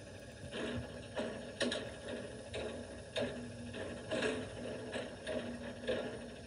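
McNeilus front-loader garbage truck's automated cart arm dumping a residential cart into the front container. A rhythmic clanking comes about twice a second over the truck's running, muffled through a window.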